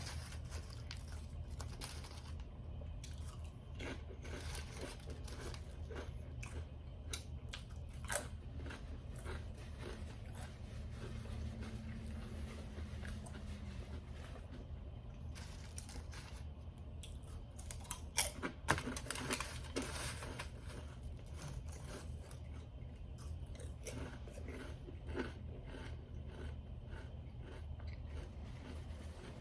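Biting and chewing a toasted fried bologna sandwich close to the microphone: crunchy bites and chewing, with a cluster of louder crunches about eighteen seconds in.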